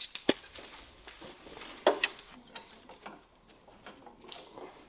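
Scattered clicks and clinks of hand tools on metal during work under a vehicle. There are two sharp ones at the start and the loudest about two seconds in.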